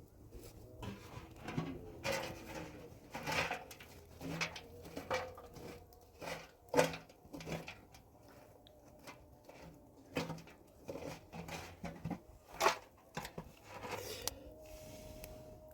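Irregular knocks and clatters of objects being handled, a couple of dozen sharp strikes at uneven spacing, the loudest about seven seconds in and near the end.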